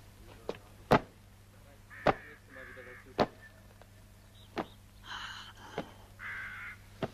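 A quilt hung on a line being beaten with a stick: a sharp whack roughly once a second. Crows cawing between the blows.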